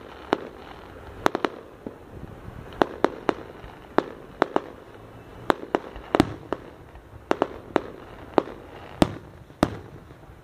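Fireworks going off: a string of sharp bangs at irregular intervals, one or two a second, stopping shortly before the end.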